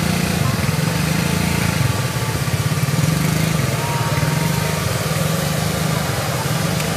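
A small engine running with a steady, low hum that has a fast, even pulse.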